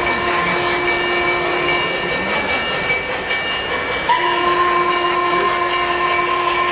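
3-rail O-scale model steam locomotive's onboard sound system blowing a steam whistle in two long blasts, the first ending about two seconds in and the second starting about four seconds in, over the steady running noise of the train on the track.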